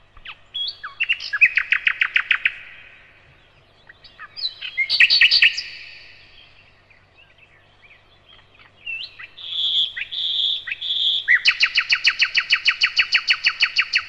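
Common nightingale singing: phrases of fast repeated notes separated by short pauses, three drawn-out whistled notes about ten seconds in, then a long, rapid run of repeated notes.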